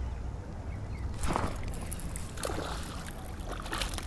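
Water splashing and sloshing in a few irregular bursts starting about a second in, over a low steady rumble.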